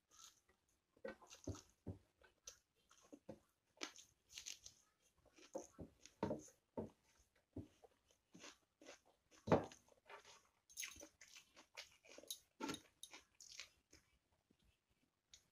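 Close-up eating sounds of someone eating rice and chicken curry by hand: faint, irregular chewing and mouth clicks with scattered crunches, one louder crunch a little over halfway.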